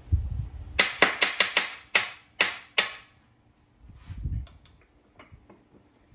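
Hammer striking a punch in a quick run of about eight sharp blows, knocking the milled-down porcelain of a broken spark plug loose; a few light clicks follow.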